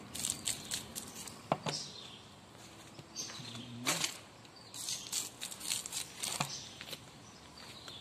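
Granular fertiliser scattered by hand onto loose soil round a young fruit tree: irregular bursts of pattering and rustling as the granules land.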